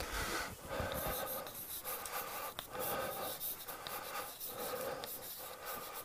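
Chalk writing on a blackboard: a quick run of short scratching strokes as a word is written out, with a sharp tick of the chalk about two and a half seconds in.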